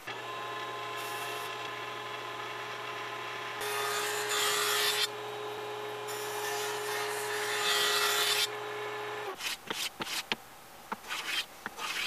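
Table saw running steadily, its blade skimming the overhanging edge off a solid-wood board held against a jig, with two louder stretches of cutting noise. About nine seconds in the saw sound stops abruptly, and a run of short scraping strokes follows: a hand plane smoothing the trimmed edge.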